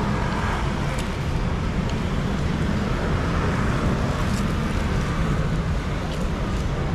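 Steady road traffic noise, with vehicle engines running close by.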